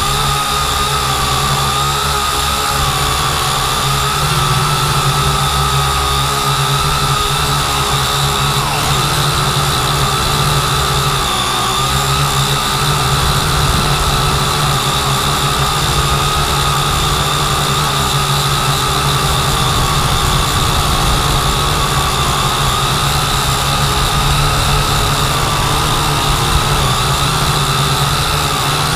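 Quadcopter drone's electric motors and propellers whining steadily as it climbs and hovers, heard loud and close from the camera carried on the drone, the pitch wavering slightly.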